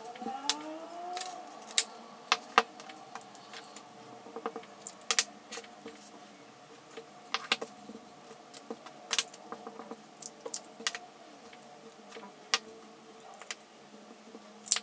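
Irregular light clicks and taps of hard plastic as a clear acrylic stamp block and small Ranger Archival Ink pad cases are handled, the pad tapped onto the stamp to ink it and the stamp pressed onto card.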